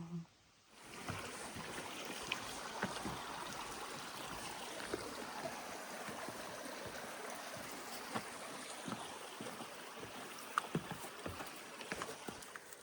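Stream water rushing steadily, setting in about a second in, with scattered small clicks and knocks over it. A short low sound comes right at the start.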